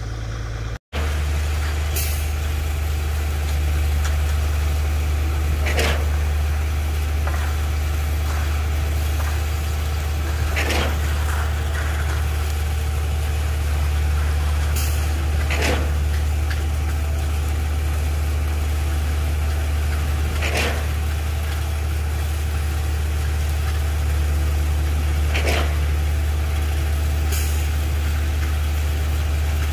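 Concrete boom pump truck running steadily under load while pumping concrete, with a short sharp clack-and-hiss about every five seconds, typical of the pump's valve shifting between piston strokes. The sound drops out briefly just under a second in.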